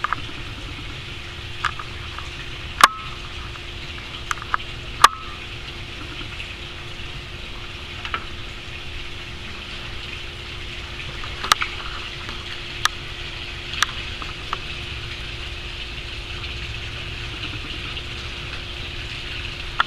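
Steady background hiss with a faint low hum, broken by several sharp clicks; the loudest come about three and five seconds in, with smaller ones around the middle.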